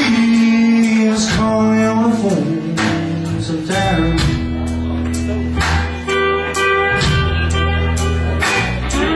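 Live blues band playing: electric guitar with bent, sliding notes over drums and steady low bass notes.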